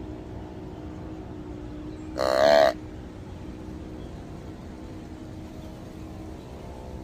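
Adjustable slide-tube deer grunt call blown once: a single short buck grunt about two seconds in, pitched to sound like a small-to-medium buck, over a faint steady hum.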